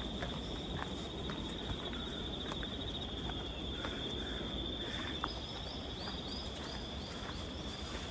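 A steady high-pitched insect trill runs throughout over a low outdoor rumble, with scattered short clicks like footsteps on a path. From about five seconds in, a quick series of short high chirps joins it.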